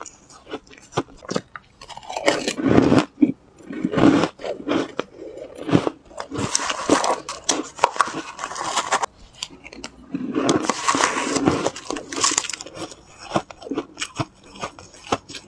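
Shaved ice being crunched and chewed, a quick run of crisp crackling crunches. Several longer stretches of a metal spoon scraping and scooping through shaved ice in a bowl come between them.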